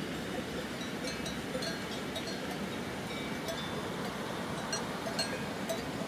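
Cowbells on grazing cows clinking irregularly over the steady rush of a mountain river.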